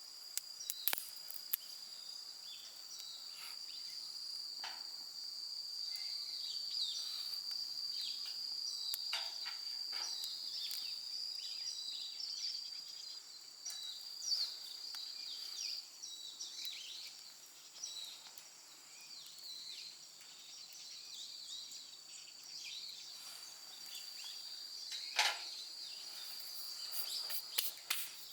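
Insects singing in one steady, high, unbroken trill, with scattered sharp clicks and crackles throughout; the loudest click comes near the end.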